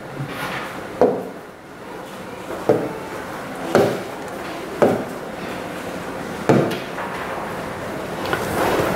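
Five sharp knocks at uneven intervals over a steady room background.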